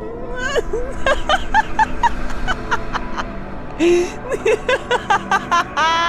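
High-pitched giggling in many short, repeated laughs over a low, steady horror-music drone.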